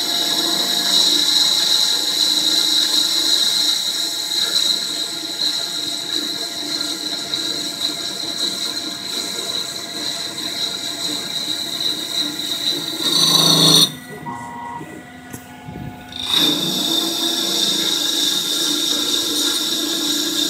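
Syil EX250 CNC lathe turning a copper-bearing aluminium alloy part: the spindle running while the tool cuts, with a steady high whine. About two-thirds of the way through, the sound gets louder and then drops off sharply as the cut breaks off. It stays quieter for two or three seconds, then the whine of the cut comes back.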